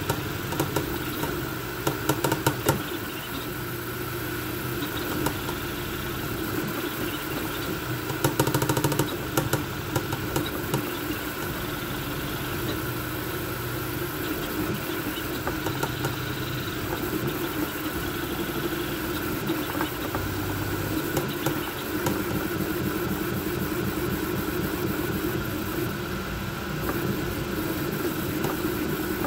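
Voron V2.4 CoreXY 3D printer running a fast print: its stepper motors hum in tones that keep switching pitch as the toolhead changes moves, over the steady whir of its cooling fans. Brief bursts of rapid clicking come about two seconds in and again about eight seconds in.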